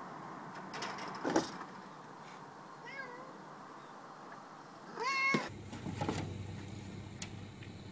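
Domestic cat meowing: a faint short meow about three seconds in, then a loud, drawn-out meow about five seconds in. A few sharp knocks sound about a second in.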